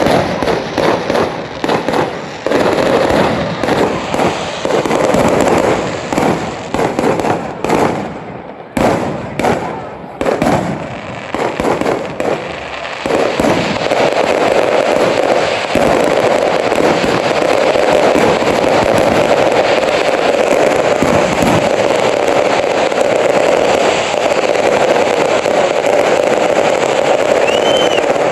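Fireworks going off: a rapid run of sharp bangs and crackles for about the first half, then merging into a steady, unbroken din of firing.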